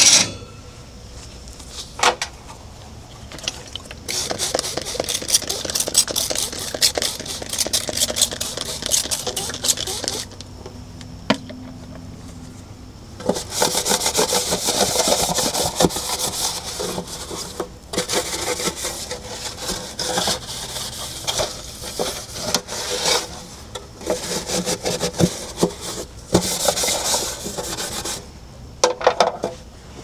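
Rapid back-and-forth scrubbing on a hard surface in several stretches of a few seconds, with short pauses between, as smoke stains are cleaned off a refrigerator. A sharp knock comes at the very start.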